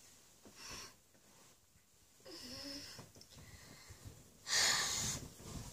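A girl's waking-up sounds: soft breathing, a short low vocal groan a little after two seconds in, and a louder breathy huff near the end as she sits up in bed.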